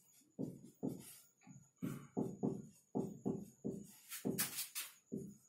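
Faint background music: a string of plucked notes following one another every few tenths of a second. About four seconds in there is a short hiss.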